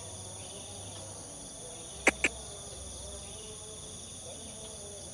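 Steady high-pitched insect chorus, with two sharp short chips close together about two seconds in.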